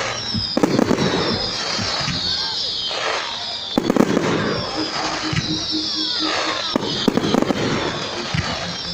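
Fireworks display: loud bangs from bursting shells about half a second, four seconds and seven seconds in, over continuous crackling, with repeated high-pitched falling whistles.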